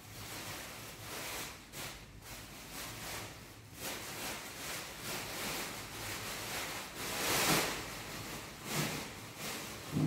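Intermittent rustling and swishing noises from off-camera, a few seconds apart, with a thump at the very end.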